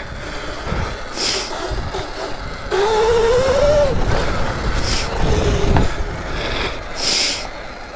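Electric off-road dirt bike on a trail: wind buffeting on the microphone and a low rumble throughout, with the electric motor's whine rising in pitch about three seconds in as the bike accelerates. Short hissing bursts come a few times.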